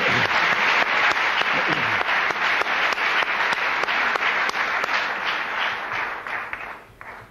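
Audience in a theatre applauding, a dense steady clapping that dies away near the end.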